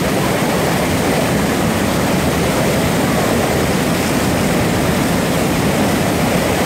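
Loud, steady rush of whitewater rapids pouring over a rock slide.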